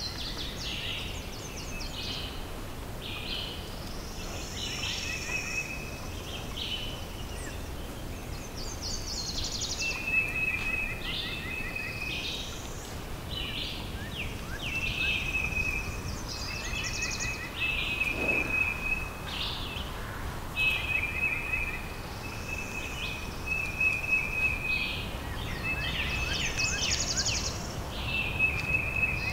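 Several wild birds singing and calling at once: a busy chorus of short chirps, trills and repeated whistled phrases, over a steady low rumble.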